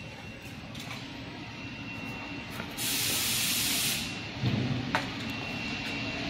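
A burst of compressed-air hiss from a fiber laser tube cutting machine, lasting about a second and starting near the middle, over a steady machine hum with a few light clicks.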